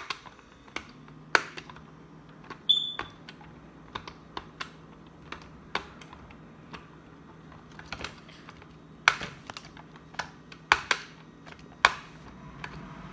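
Irregular sharp plastic clicks and taps from a pink LOL Surprise toy with a password lock being worked in the hands, with a cluster of louder clicks about nine to twelve seconds in. A brief high beep sounds about three seconds in.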